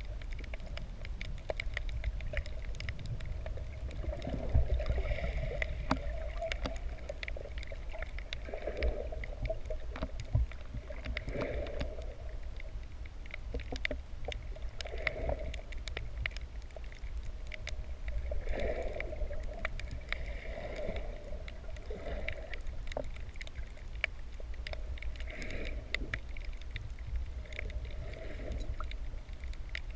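Muffled underwater sound picked up by a camera held below the surface while snorkelling: a steady low rumble of moving water, a muffled whoosh that comes back roughly every three seconds, and scattered sharp clicks.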